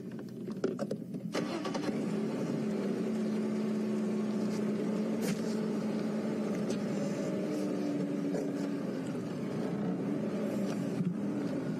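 Safari game-viewing vehicle's engine coming up about a second in, then running steadily as the vehicle moves off slowly.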